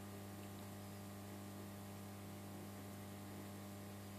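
Steady low electrical mains hum, unchanging, with nothing else heard.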